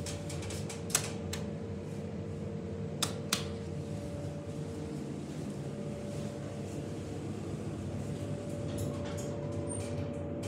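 Steady hum of a ThyssenKrupp traction elevator car's fan and machinery, heard inside the car while it stands at a landing. A sharp click comes about a second in and two more about three seconds in, and a faint brief high tone sounds near the end.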